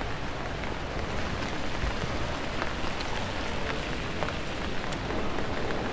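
Steady rain falling: a constant hiss with scattered sharp drop ticks.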